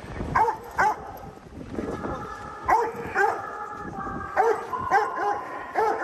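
Doberman barking about eight times, in quick pairs and singles, while being agitated by a decoy during protection (bite) training.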